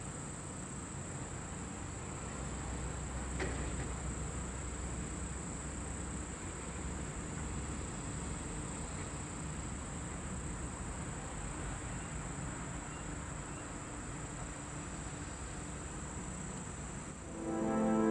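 Steady high-pitched droning of insects over a low rumble, with one faint click a few seconds in; music with a steady pitched chord begins about a second before the end.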